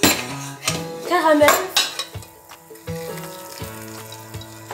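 Hot caramel being poured from a metal saucepan into a floured metal cake tin, with a spoon scraping the saucepan and a few light metal clinks in the first couple of seconds. Soft background music with held notes runs under it.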